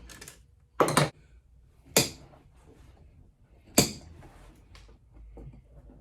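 Three sharp clacks and knocks about a second apart, the first a quick double knock, with fainter clicks between: tools and seat parts being handled while a car seat is taken apart.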